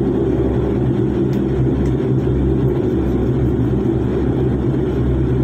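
Airliner engines droning steadily, heard inside the passenger cabin as the plane rolls along the ground ahead of takeoff, with a low hum under a broad rush of noise.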